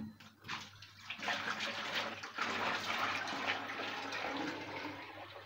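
Slimy salt wash water from cleaning catfish being poured out of a plastic basin into a plastic bucket: a splashing gush that builds about a second in and fades toward the end.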